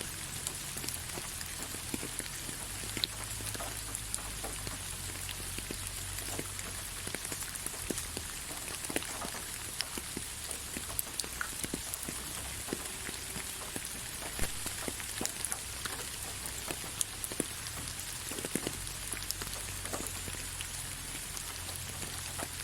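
Rain falling on leaves: a steady patter with many irregular, sharper drops striking nearby.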